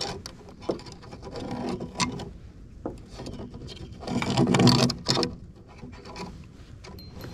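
Rustling, rubbing and small clicks from hands handling a bluegill while threading it onto a fish stringer with a metal clip. There is a louder rustle for about a second, starting about four seconds in.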